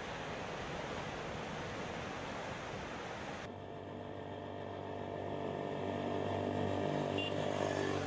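Steady rushing of wind and surf. About three and a half seconds in it cuts to a motor vehicle's engine running with a steady low hum, growing louder toward the end as the vehicle comes closer.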